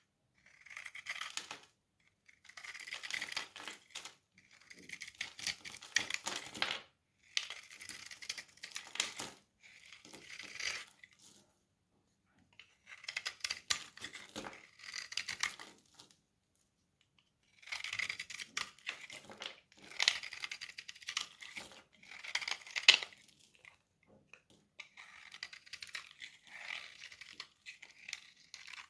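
A knife cutting through a bar of dry soap in repeated strokes, each a crackling, crunchy scrape lasting a second or two with brief pauses between.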